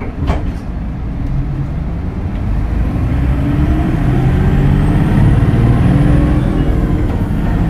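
Hino Blue Ribbon City Hybrid bus pulling away and accelerating, heard from inside the cabin, its diesel engine note growing louder and climbing steadily. There is a short click just after the start.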